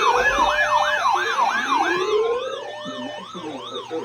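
Layered electronic siren tones sounding as an alert ahead of a severe thunderstorm warning: a fast warbling yelp of about three sweeps a second over slower rising wails. They fade down from about halfway through.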